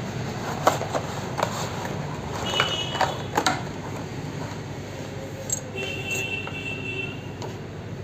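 Cardboard box of an aquarium heater being handled and opened, with a string of sharp clicks and knocks from the packaging in the first few seconds, over a steady background noise.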